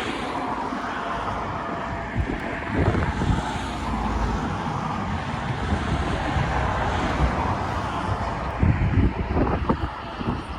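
Wind buffeting the microphone in irregular low gusts over a steady outdoor background noise.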